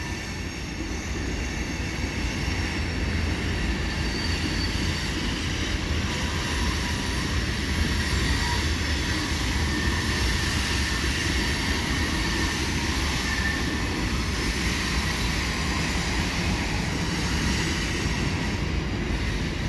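Freight train cars rolling over a railway bridge in a sharp curve, with a steady low rumble and high wheel squeals that come and go as the wheel flanges grind against the rail.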